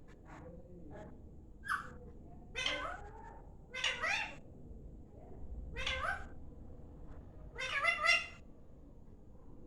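Pet parrot calling: about five short, pitch-bending calls a second or two apart, the last the loudest.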